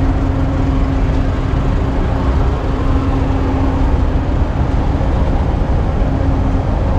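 Steady machine hum over a low rumble, holding one pitch without change.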